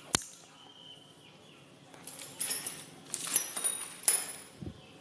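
Accessories from a drill kit's plastic case being handled: a sharp click, then small metal parts such as drill bits clinking and rattling with brief high ringing, and a soft knock near the end.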